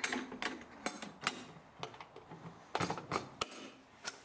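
Steel military-surplus ammo can lid being swung shut and latched down: several sharp metal clicks and clunks, a cluster of them about three seconds in.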